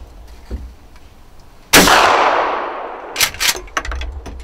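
A single gunshot about two seconds in, its loud report fading out over about a second. A few short clicks and knocks follow near the end.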